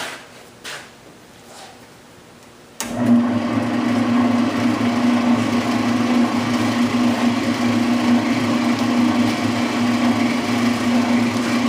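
Oscillating spindle sander switched on about three seconds in and running steadily with a constant motor hum, its spindle turning and moving up and down.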